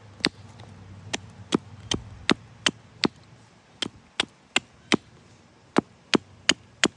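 Hatchet chopping into a cherry wood spoon blank: a quick series of sharp, short chops, about two to three a second, with two brief pauses, as chunks are hewn off to rough out the blank.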